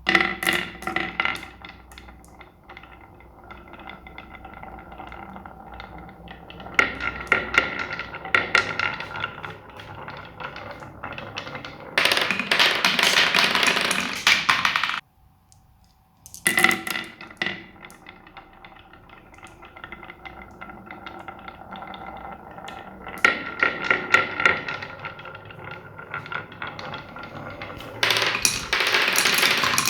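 Marbles rolling and clattering down a building-block marble run: a stream of quick clicks and rattles with some ringing, rising to a loud dense rattle, then breaking off briefly before the clatter starts over.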